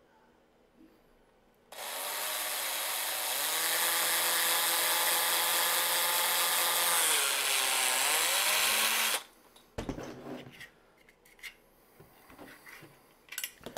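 Electric drill with a 3/32-inch bit drilling a hole through a 3D-printed PETG part. It starts about two seconds in and runs steadily for about seven seconds; its pitch dips briefly near the end as the bit loads, then it stops, followed by a knock and a few light handling clicks.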